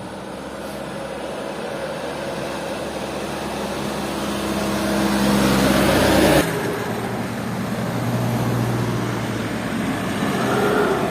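A heavy road vehicle's engine running as it passes, growing louder for about six seconds and then cutting off abruptly, followed by a lower, steady engine hum of road traffic.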